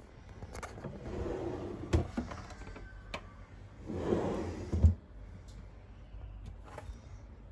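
Two scraping slides of about a second each, each ending in a sharp knock, then a few light clicks: things being slid and set down while a refrigerator is being organised.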